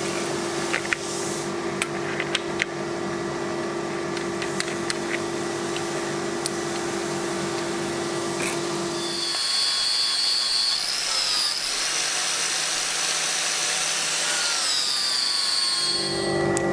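Makita angle grinders running on steel: a steady motor whine with a few light clicks. About nine seconds in, the whine changes to a higher-pitched one with a slowly falling tone, and the first whine returns near the end.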